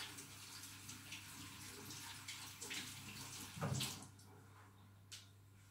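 Kitchen tap running faintly into a sink, with splashing as someone rinses at it. The water stops about four seconds in, just after a short knock.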